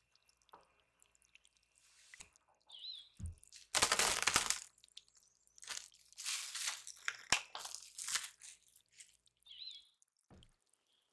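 Plastic cling wrap crinkling in several bursts as it is peeled off a log of chocolate cookie dough, then a soft thud near the end as the dough log is set down on a wooden cutting board.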